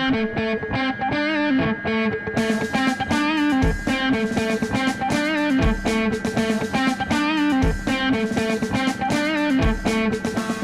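Background music: an electric guitar melody with effects, joined about two seconds in by drums, with a deep kick about every two seconds.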